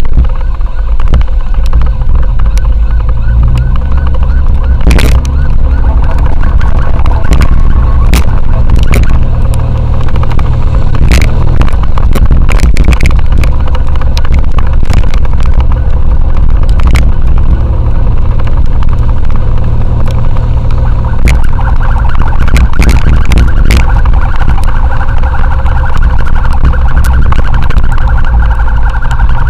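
Motorcycle ride with a heavy rumble of wind and engine on the rider's microphone, and an ambulance siren sounding along with it, stronger in the last third.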